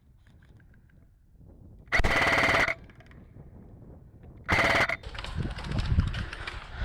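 Close-by airsoft electric rifle firing two full-auto bursts, the first under a second long and the second about half a second, each a fast rattle of shots. After the second burst come rustling and quick footfalls.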